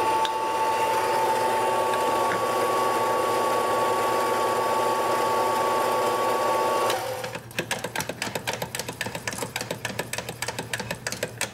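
Espresso grinder motor running steadily with a high hum while grinding a single dose, cutting off about seven seconds in. Then a quick run of sharp clicks, several a second, as the ground coffee is dosed out of the grinder.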